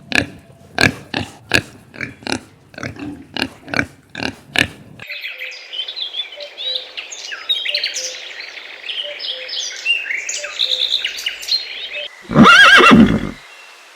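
A quick series of sharp knocks, about three a second, for the first five seconds. Then high, rapid chirping calls for about seven seconds, and near the end one loud pitched animal call lasting about a second.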